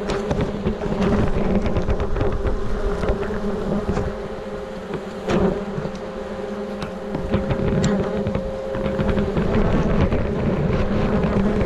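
Swarm of wasps buzzing around their opened nest, a steady drone, with low rumble and scattered clicks.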